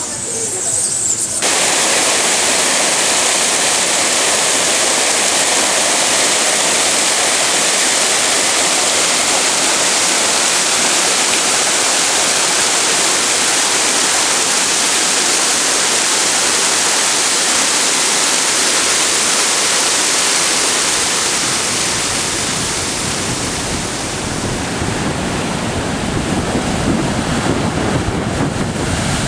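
Steady rush of falling water, like a cascade in a garden. About two-thirds of the way through it gives way to waves breaking and washing over a rocky shore, with wind buffeting the microphone.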